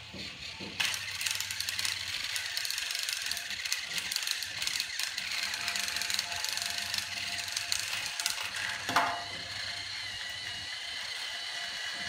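Two battery-powered TrackMaster toy train engines pushing head-on against each other on plastic track. From about a second in, their small electric motors and gears whir with rapid clicking and a steady high whine. There is one louder knock about nine seconds in.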